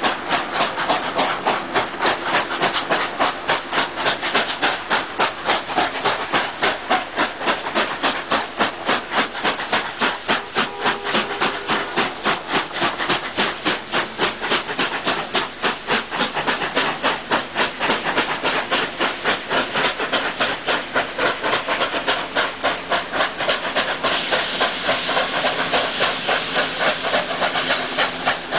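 Two steam locomotives working hard on a steep climb: NSWGR 36 class 4-6-0 No. 3642 and 59 class 2-8-2 No. 5910 double-heading, giving rapid, regular chuffing exhaust beats with steam hiss. The hiss grows brighter about 24 seconds in.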